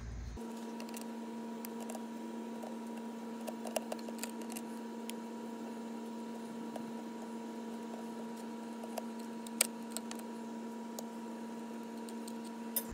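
Light clicks and taps of a screwdriver as supply wires are taken off the terminal screws of a pool booster pump, over a steady hum. The sharpest clicks come about four seconds in and near ten seconds.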